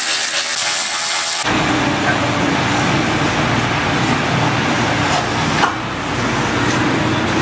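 Cordless ratchet whirring briefly as it runs out a 10 mm fender bolt. It stops about a second and a half in and gives way to a steady, loud rushing noise.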